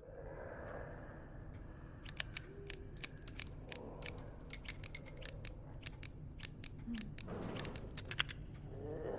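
A revolver's action being worked: a long run of sharp metallic clicks at uneven spacing, starting about two seconds in and lasting until near the end, with a faint high metallic ring partway through.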